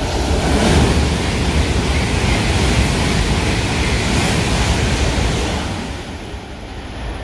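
E7/W7-series Shinkansen passing at about 230 km/h: a loud, steady rush of air and wheel noise with a deep rumble, easing off about six seconds in.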